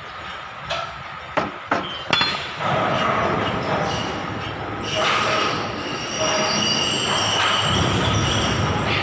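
Metal-on-metal work: a few sharp taps, then a continuous loud squealing scrape that holds several high tones.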